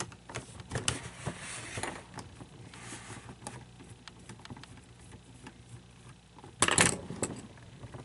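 Handling noise from a plastic animatronic figure being worked apart by hand: scattered small clicks and rattles, with a louder clattering burst near the end.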